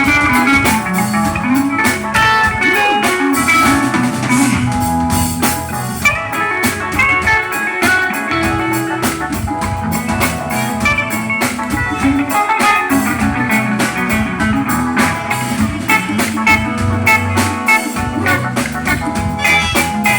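Live band playing an instrumental piece: guitar melody over a bass line and a drum kit keeping a steady beat.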